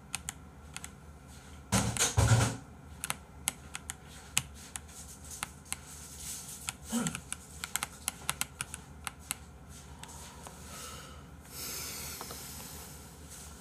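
Computer keyboard keys clicking in irregular runs as they are pressed to steer a game, with a brief louder burst about two seconds in.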